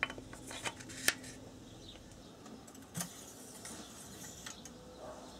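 Engine oil dipstick being pulled out of its tube to check the level after an oil refill: a few light metallic clicks and scrapes in the first second, then a soft knock about three seconds in.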